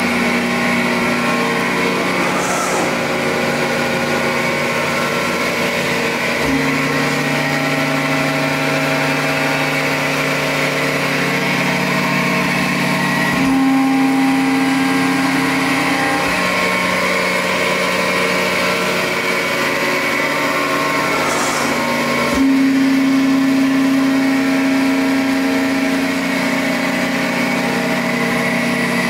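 Hydraulic pump and motor of a 130-ton Accurpress CNC press brake running with a steady hum, whose tone steps up or down a few times. A brief hiss comes twice.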